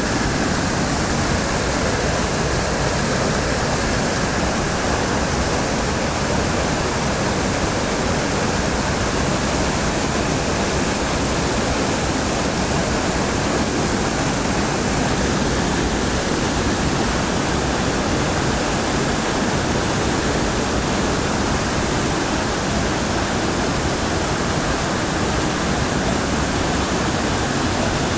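Loud, steady rush of whitewater in a mountain stream at the foot of a waterfall, with thin streams of water falling from the rock face into it.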